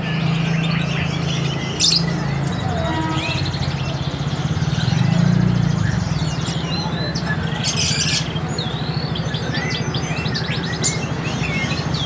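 Caged canaries chirping busily, many short quick up-and-down chirps overlapping, with a steady low hum underneath and a few short sharp sounds.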